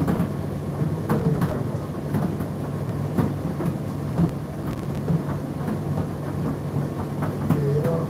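Indesit IDC8T3 condenser tumble dryer running mid-cycle: a steady low motor hum with irregular light clicks and knocks from the turning drum.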